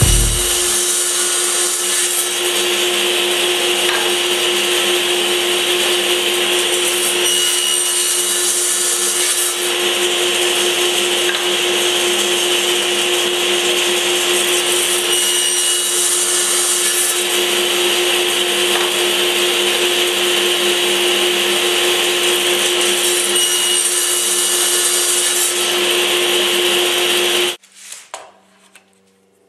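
Table saw running steadily, a continuous motor-and-blade noise with one constant tone in it, which cuts off abruptly about 27 seconds in.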